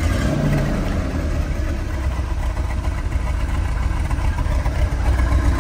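A 1970 Chevrolet Corvette L46's 350 cubic-inch small-block V8 idling steadily at the exhaust, shortly after a cold start. It runs smooth and quiet, with no pinging or lifter rattle, the sound of a healthy engine.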